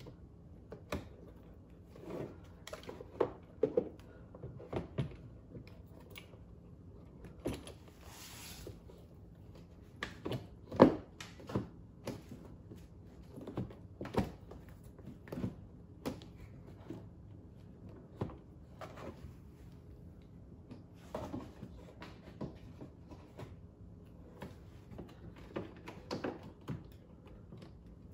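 Hard plastic clicks and knocks, at irregular intervals, from a Madjax LED headlight housing being pushed and worked into the trimmed opening in a Club Car Tempo's plastic front cowl. There is one sharper knock about eleven seconds in and a brief scrape a little before it. The light is not yet snapping home because the opening is still slightly too tight.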